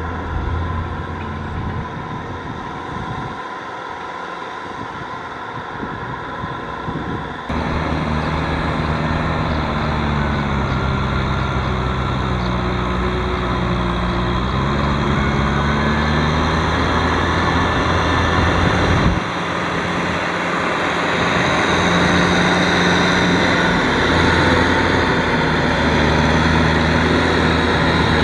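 Kubota M6040SU tractor's four-cylinder diesel engine running under load as it pulls a rotary tiller through flooded mud, its pitch rising and falling as the throttle changes. The sound jumps abruptly twice.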